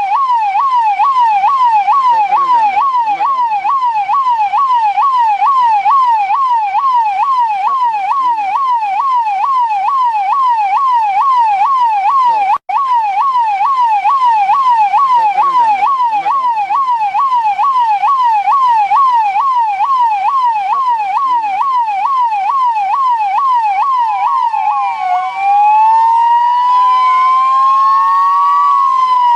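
Indian police car siren sounding a rapid yelp, its tone sweeping up and down a few times a second. It drops out for an instant about halfway through, and about 25 seconds in it changes to a slower wail, two overlapping tones rising and falling.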